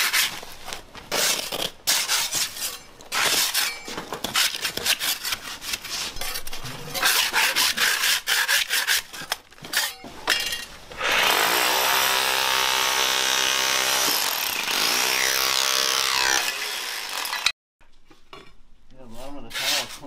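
Hand scraper scratching and rasping old, disintegrating carpet padding off a concrete subfloor in uneven strokes. About eleven seconds in, a power tool starts, runs steadily for about six seconds, then cuts off abruptly.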